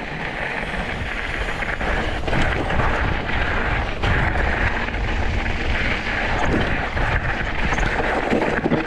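Mountain bike rolling fast down a rocky dirt trail: steady wind rush on the microphone over the rumble of knobby tyres on loose gravel, with a few light knocks from the bike over rocks.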